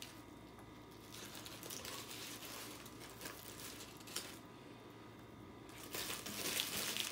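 Paper food packaging crinkling and rustling as it is handled, quieter for a moment a little past the middle and louder again near the end.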